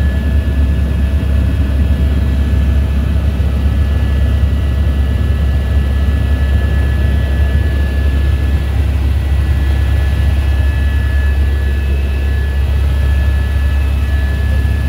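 Helicopter in flight heard from inside the cabin: a loud, steady low drone with a thin steady high whine over it.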